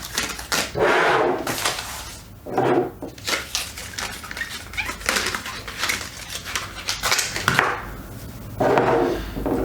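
Clicks and rustling from handling a small Zoom F3 field recorder as its battery compartment is opened for two AA batteries, with irregular taps and a few soft scraping rustles.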